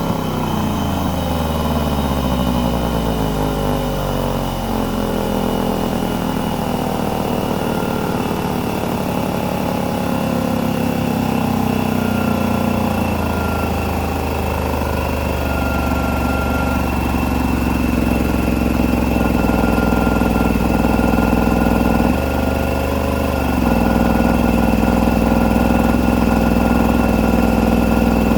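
Husky 27-gallon air compressor running on its first fill of the tank from empty: a steady mechanical drone with a high whine over it. Its pitch drops over the first several seconds, and the sound shifts briefly about 22 seconds in.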